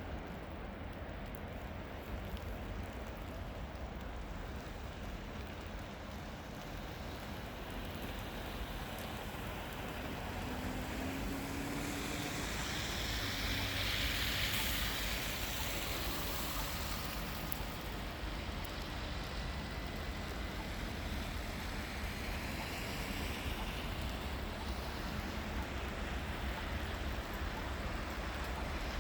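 Steady road traffic noise with a vehicle's tyre noise swelling past about halfway through, then fading.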